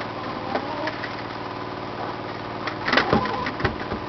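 A steady engine-like hum, with scattered short clicks and brief calls from chickens feeding on termites, and a louder cluster of knocks about three seconds in.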